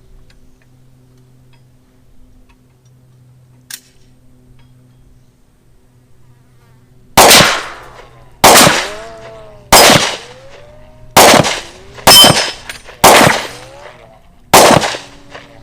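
Seven pistol shots from a stock 10mm Glock 20 firing .40 S&W 180-grain rounds, spaced about a second to a second and a half apart. Each shot rings off briefly. A faint steady hum comes before the first shot, about seven seconds in.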